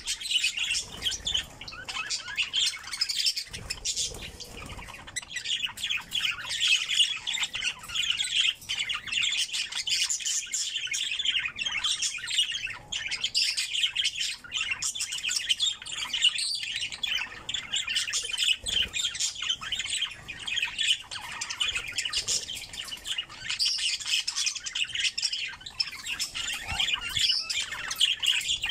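Several budgerigars chattering and chirping without a break, a dense warbling mixed with sharper squawks.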